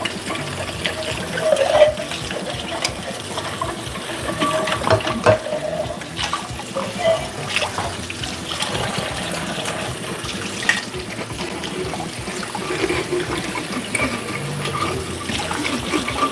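Kitchen tap running into a stainless steel sink while glasses are rinsed under the stream, with scattered light clinks of dishes being handled.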